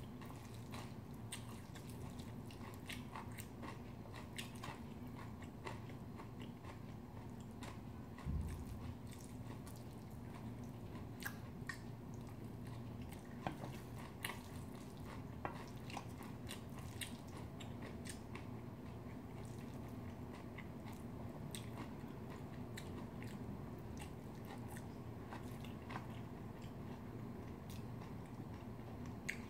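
Close-miked chewing of spoonfuls of bibimbap (rice mixed with seasoned vegetables), with scattered sharp clicks over a steady low hum. One low thump comes about eight seconds in.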